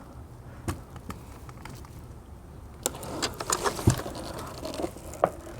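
Handling noise from a push mower tipped over to drain its oil: scattered clicks and light rattles starting about three seconds in, with one dull knock in the middle of them.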